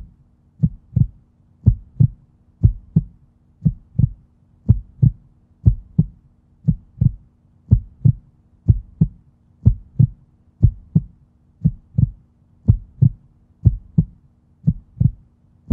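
Heartbeat sound effect: a steady double thump, lub-dub, about once a second.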